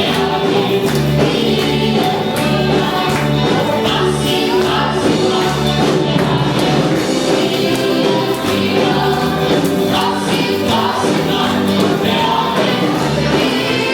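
Live gospel music: a group of voices singing together in harmony over a band, with a steady bass line and rhythmic percussion.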